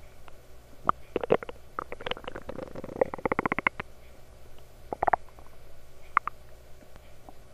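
Lower intestines gurgling and popping in irregular bursts, with a fast run of gurgles from about two to four seconds in and shorter clusters around one, five and six seconds: bowel sounds of an upset stomach from overeating.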